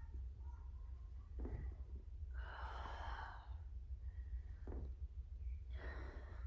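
A woman breathing during a yoga flow, with one long exhale about two and a half seconds in and a few shorter soft breaths, over a low steady hum.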